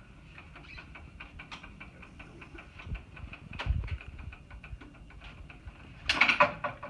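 Light clicking and ticking from a hiking wheelchair's parts being handled during disassembly, several clicks a second. There is a low thump about halfway through and a louder clatter near the end.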